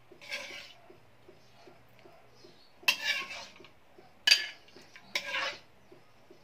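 Metal ladle scraping against the inside of a wok as sauce and vegetables are scooped out, four scrapes with the sharpest ones about three and four seconds in.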